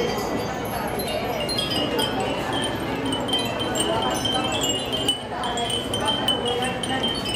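Many hanging Japanese wind chimes (furin) tinkling together, their high, clear ringing tones overlapping continuously, over a steady low background hubbub.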